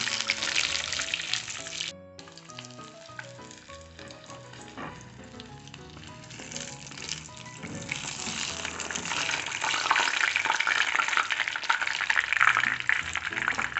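Marinated fish pieces deep-frying in hot mustard oil in a kadai: a dense, crackling sizzle, with a wooden spatula turning and lifting the pieces. It breaks off briefly about two seconds in and runs quieter for several seconds, then grows loud again in the second half.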